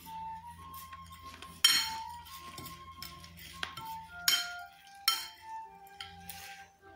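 Cutlery clinking against dishes several times, the loudest clink about a second and a half in, over soft background music.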